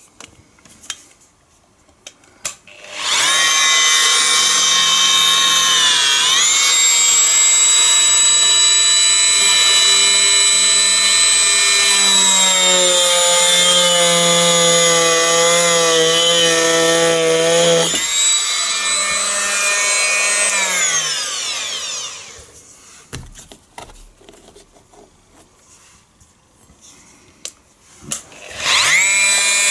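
Oscillating multi-tool cutting through a glued-in wooden dowel to trim it flush. Its motor starts with a high whine about three seconds in and dips in pitch as the blade bites into the wood. It runs steadily, then winds down and stops; after a pause with a few small knocks it starts up again near the end.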